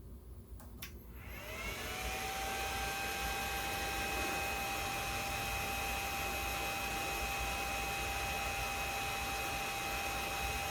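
Bridgeport milling machine spindle switched on with a click about a second in, spinning up over a second with a rising whine and then running steadily, turning in reverse to back a tap out of the threaded hole.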